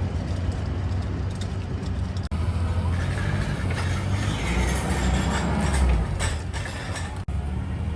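An engine running steadily with a low rumble, broken twice by abrupt cuts.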